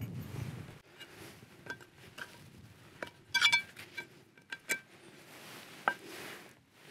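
Light metal clicks and clinks of a Jetboil frying pan and its folding handle being handled and clipped together. The clinks are scattered, with a brief ringing clatter a little past the middle that is the loudest moment.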